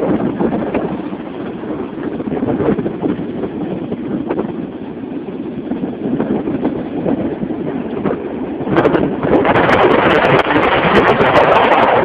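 Hurricane-force wind buffeting the microphone in gusts, with a constant rumble. About nine seconds in it surges louder and harsher, with crackling on the microphone.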